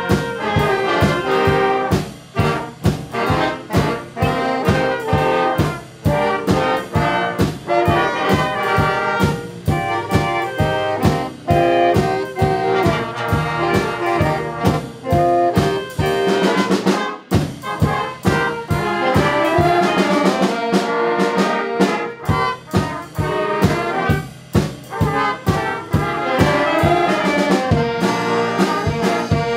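A junior high school band playing a holiday classic: trumpets and trombones carry the tune over a steady drum beat. The music breaks off briefly about seventeen seconds in.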